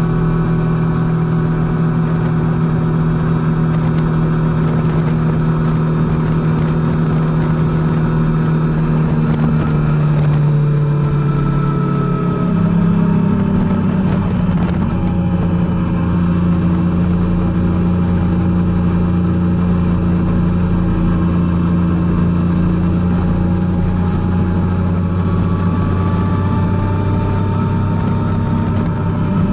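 Triumph Tiger 800's inline three-cylinder engine running under way, its pitch climbing slightly before an abrupt change in engine note about twelve seconds in, then holding steady.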